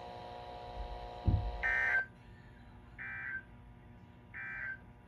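Three short electronic beeps, evenly spaced about a second and a half apart, each dropping slightly in pitch as it cuts off. Before them there is a faint steady hum and a single low thud.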